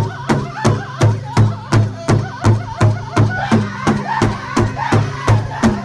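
A powwow drum group: several men beat a large shared powwow drum in unison with drumsticks, a steady beat of about three strokes a second, while they sing over it in high, wavering voices.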